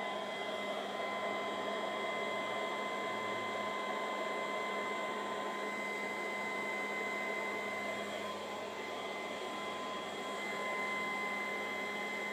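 Sun Joe SBJ601E 10-amp electric leaf blower running at its low (stage 1) speed: a steady motor whine over the rush of air from the tube.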